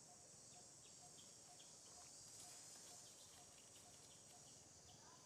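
Faint forest ambience: a steady high insect hum, with a soft short note repeating evenly about twice a second.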